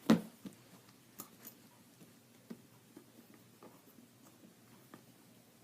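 One sharp knock right at the start, then scattered light clicks and taps as a backpack and its strap hardware are handled.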